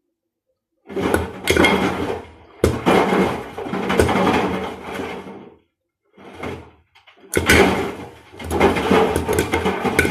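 Washing machine running with blocks of ice tumbling and knocking about in the drum, a clattering over a steady motor hum. It starts about a second in and comes in several stretches with short breaks.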